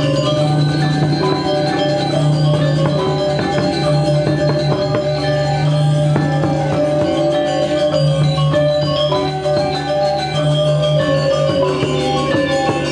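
Balinese gamelan ensemble playing: bronze metallophones ring out in a dense, continuous stream of notes over a steady low hum, with hand-played kendang drum strokes underneath.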